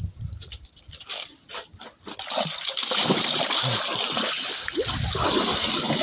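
Cold plunge into an icy concrete-ring tub: about two seconds in, water splashes as a man drops in, then keeps sloshing and splashing around him while he gasps and yells from the cold.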